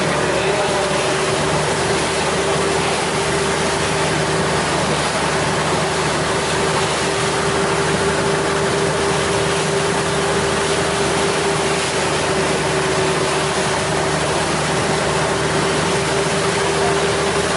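A riverboat's engine running steadily while underway, holding one pitch, over the rush of choppy water and wind.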